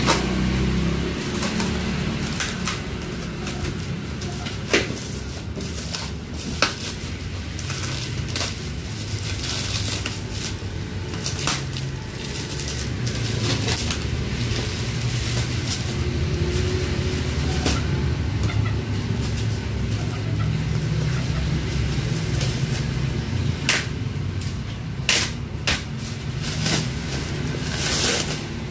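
Black plastic wrap being torn and pulled off a cardboard box, crinkling with scattered sharp crackles that come thickest near the end, over a steady low hum.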